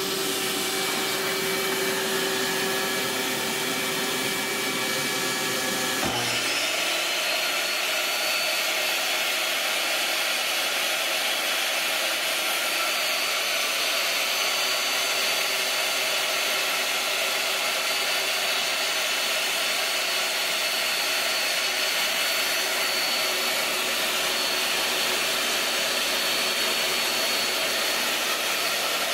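A shop vacuum runs steadily for dust collection. About six seconds in, the DeWalt 745 table saw's motor switches on with a rising whine that settles into a steady high whine, running on together with the vacuum.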